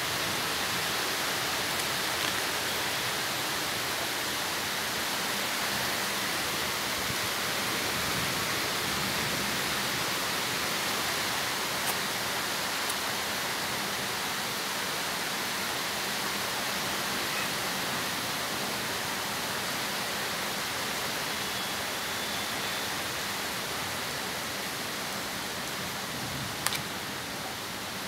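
Rain falling steadily: an even, continuous hiss, with a few brief sharp clicks, the loudest near the end.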